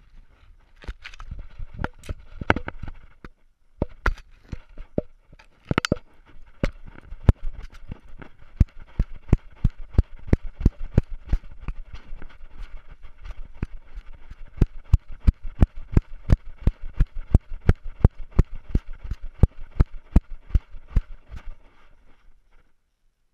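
A collar-mounted GoPro jostling as a dog runs: irregular bumps at first, then steady knocks and rattles about three a second in time with its strides, over a continuous rustle, stopping about a second before the end.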